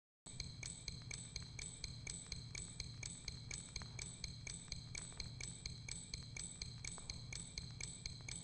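Opening of a music track: a steady metallic ticking, about two and a half ticks a second, over a low hum, starting a moment in after silence.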